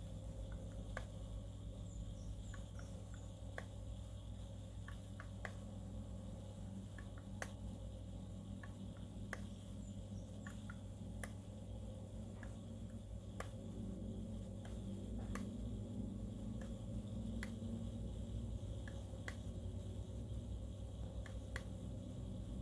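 Steady low electrical hum with faint, sharp ticks about every two seconds.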